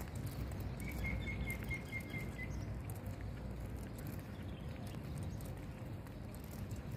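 A small bird gives a quick run of about eight short, high chirps starting about a second in. Under it runs a low, steady rumble and the patter of walking.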